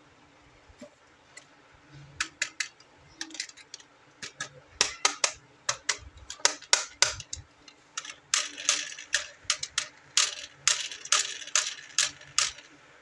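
Plastic toy pieces being handled: a run of irregular sharp clicks and taps that begins about two seconds in and grows denser and louder in the second half.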